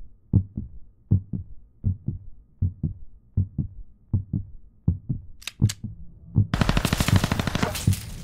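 Heartbeat sound effect: steady paired low thumps, lub-dub, about 80 beats a minute. About five and a half seconds in come two short high swishes, then a loud burst of rapid rattling.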